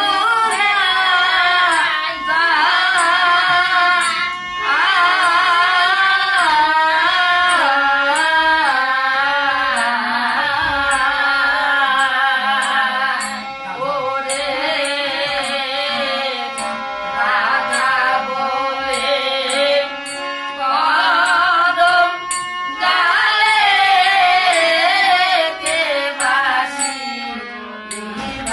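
A group of women singing a Bengali folk song together, accompanied by a harmonium playing sustained chords under the voices.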